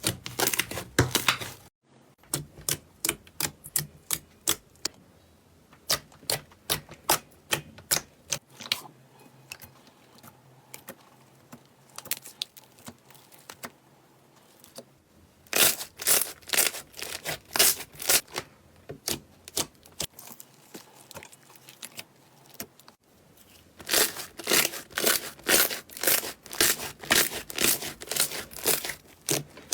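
Slime being squeezed and worked by hand, giving runs of sharp crackling clicks and pops, in quick flurries with quieter stretches between; the sound cuts out briefly twice.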